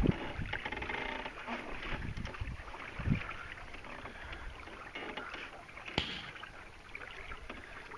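Water splashing and lapping against a canoe's hull under sail, with wind rumbling on the microphone. A few knocks are heard, sharpest at the start and about six seconds in, with a duller thump near three seconds.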